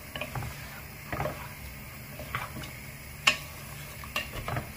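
Wooden spatula stirring and turning chicken wings in sauce in a stainless steel pot, with scattered scrapes and knocks against the pot and one sharp knock about three seconds in.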